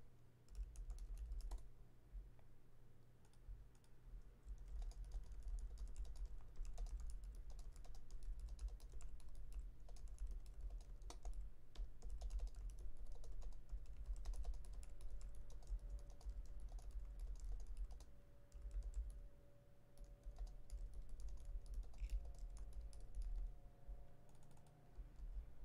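Typing on a computer keyboard: runs of quick, light key clicks with short pauses, over a low steady hum.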